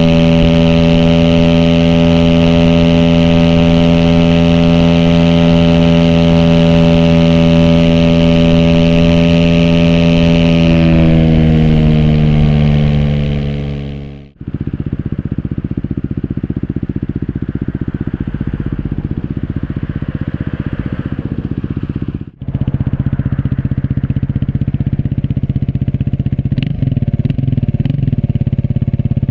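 Aprilia SX 125's single-cylinder four-stroke engine through an Arrow racing header and Thunder slip-on with dB killer, held at steady revs while riding, then its revs falling away over a few seconds. After a brief break it runs at lower revs with a pulsing exhaust beat, picking up again near the end, heard from a phone in the rider's backpack.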